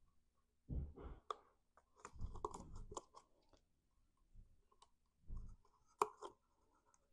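Cardstock being handled: a paper handle strip bent and pressed onto a small paper bag, rustling and crinkling in short bursts, with a sharp click about six seconds in.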